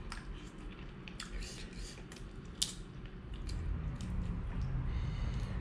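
Sauced, cooked crab being picked apart and cracked by hand: scattered small clicks and snaps of shell with wet squishing, and one sharper crack about two and a half seconds in.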